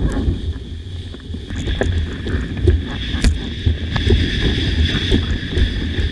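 Wind buffeting the microphone over water rushing past a windsurf board, with scattered short sharp slaps of water.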